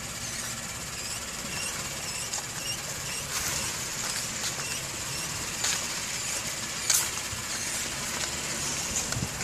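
2014 Acura MDX brakes squeaking in many short, high-pitched chirps that repeat, denser in the first half, with a few louder creaks near the middle, over the low hum of the car. The noise comes from the front brakes.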